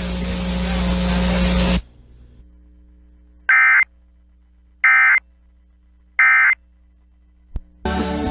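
Emergency Alert System end-of-message signal: three short buzzy digital data bursts about a second and a half apart. Before them a steady hiss with a low hum cuts off about two seconds in, and near the end there is a click and a brief burst of noise.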